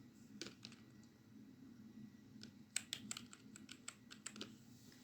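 Faint computer keyboard typing: a couple of isolated keystrokes early, then a quick run of keystrokes from about the middle to near the end.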